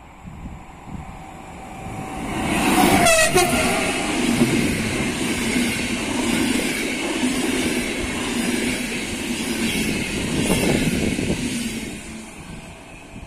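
Locomotive-hauled passenger train passing at speed: about three seconds in, a short horn call drops in pitch as the locomotive goes by. Then the carriages run past with a steady rumble and rattle of wheels on the rails, which fades near the end.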